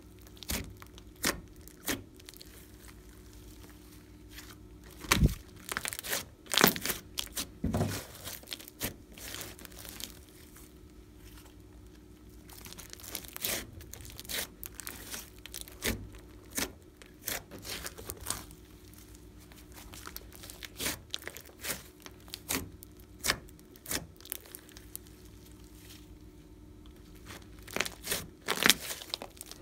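Hands squeezing, folding and pulling apart a large mass of fluffy slime, giving irregular sticky crackles, pops and squelches, with a few heavier squishes about five and eight seconds in.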